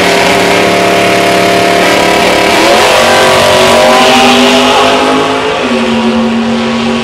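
Two big-block V8 drag cars running loud at high revs, held steady at the line. Around halfway through they launch and pull away down the strip, their engine pitch shifting as they go.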